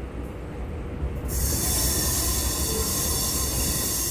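Chennai EMU suburban electric train running, heard from its open doorway: a steady low rumble of the wheels on the track. About a second in, a loud high hiss starts suddenly and carries on.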